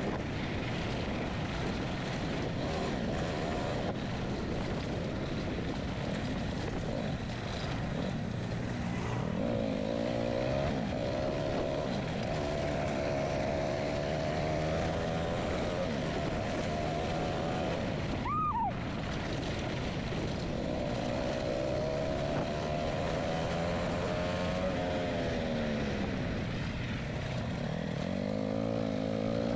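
Motor vehicle engine running under way, its pitch rising and falling with the revs. About eighteen seconds in there is a brief rising chirp.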